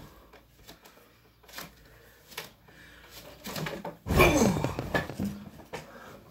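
A person jumps down onto a mattress with a heavy thud about four seconds in, together with a falling shout. Light knocks and rustles come before it.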